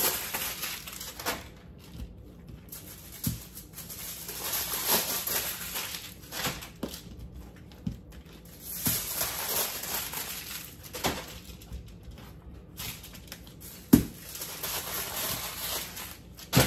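Aluminium foil crinkling in irregular bursts as potatoes are rolled up in it, with a few short knocks, the loudest about fourteen seconds in.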